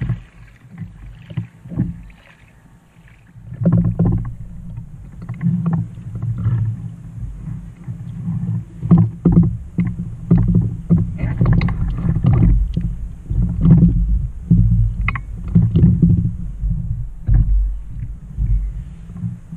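Water lapping and slapping against the hull of a Trak folding kayak, picked up by a deck-mounted camera as a low, uneven rumble with irregular knocks.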